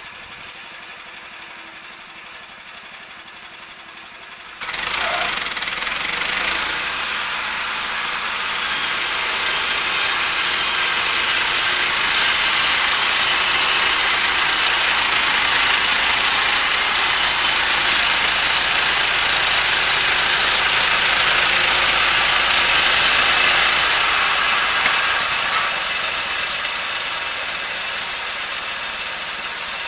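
Chainsaw milling a log: the engine idling, then about five seconds in suddenly much louder at high throttle, holding steady before easing off near the end.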